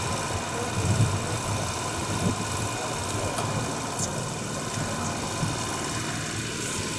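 Engine running steadily with a low drone, under an even mechanical hiss.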